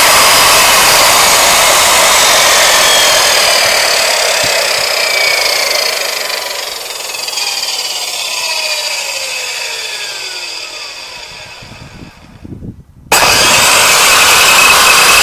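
Stayer SC261W combination table and miter saw's electric motor running at full speed, then switched off and winding down with a falling whine that fades over about seven seconds. About thirteen seconds in it is suddenly running at full speed again.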